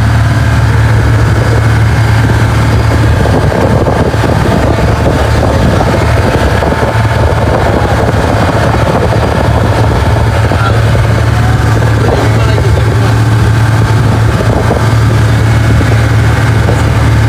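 Motorboat engine running steadily under way, a constant low drone mixed with the rush of wind and water.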